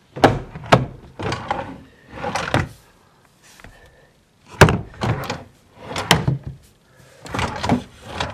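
Drawers of a chest of drawers pulled open and pushed shut several times, each a scraping slide ending in a sharp knock. The drawers are dodgy.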